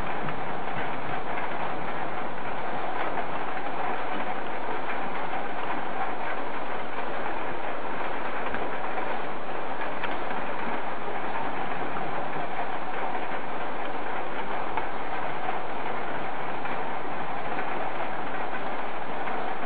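Steady, even rushing noise of a thunderstorm, with no thunderclap.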